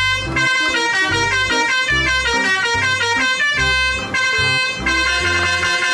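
Electronic music: a synthesized melody of short, buzzy notes stepping up and down in pitch over a bass line.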